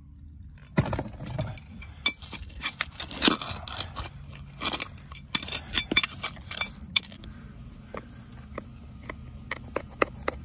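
Stones and packed dirt being scraped and dug out of a plastic irrigation valve box with a hand trowel and fingers: irregular scrapes and crunches with sharp clinks of stones knocking together, busier in the first half and thinning to scattered clicks later.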